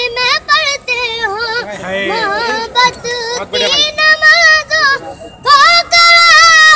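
A young boy singing a ghazal melody in a high, strong voice, with quick wavering ornaments on the notes. About two thirds of the way in he breaks briefly, then holds one long, loud note.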